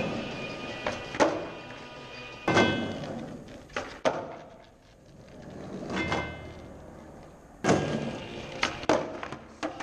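Skateboard wheels rolling on concrete, broken by several sharp clacks of the board being popped and landing, each echoing off the concrete walls and ceiling.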